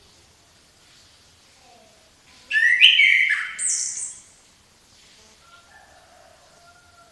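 A songbird sings one loud, varied phrase of about two seconds starting about two and a half seconds in, with quick high notes and pitch drops; softer, faint notes follow it.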